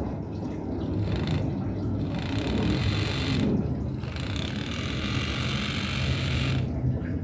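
Small motor and gears inside a miniature Yamaha XMAX scooter model whirring in two bursts, one of about a second and then one of about two and a half seconds, as its throttle grip is twisted. A steady low hum runs underneath.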